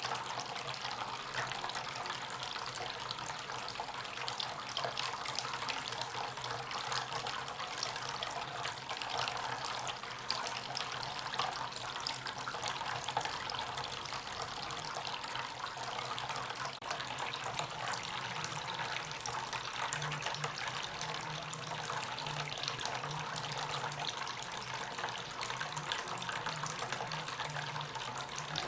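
Water from a small homemade fountain, driven by a submersible pump, splashing steadily into its basin.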